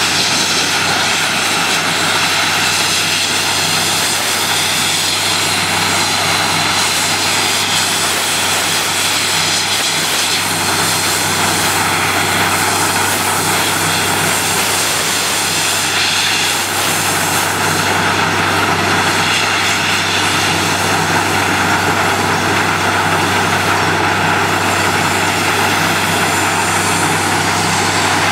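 Truck-mounted borewell drilling rig running steadily: a loud, even engine drone with a broad hiss over it, with no breaks or changes.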